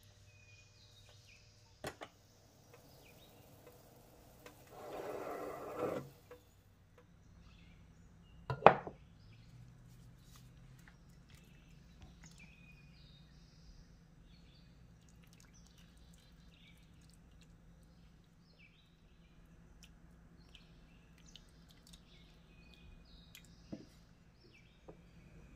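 Quiet handling of kitchen cookware and utensils: a light click, a brief scraping rustle about five seconds in, and one sharp knock, the loudest sound, near nine seconds, over a faint low hum.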